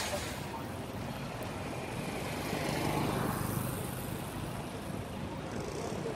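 Roadside traffic: an SUV's engine and tyres as it approaches slowly, over the steady low rumble of other traffic.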